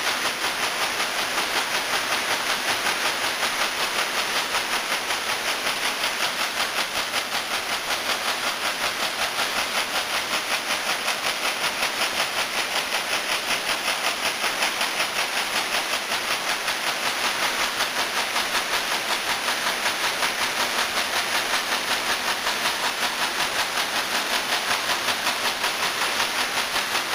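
Servo-driven multi-needle quilting machine running, its long row of sewing heads stitching with a steady, even mechanical clatter and hiss.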